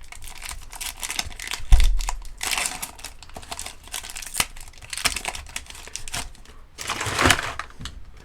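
Wrapper of a pack of trading cards being torn open and crinkled, with crackling rustles, plus a dull thump about two seconds in.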